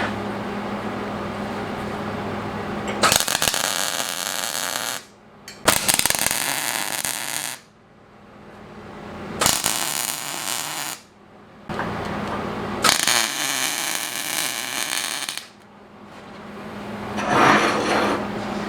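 Electric arc welder joining steel armor plates, its arc crackling and sizzling in five welds of one to four seconds each, each starting abruptly, over a steady low hum.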